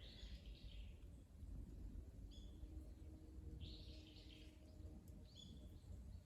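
Faint wild bird calls over a low outdoor rumble: a rasping call at the start and again about four seconds in, with two short chirps in between and near the end.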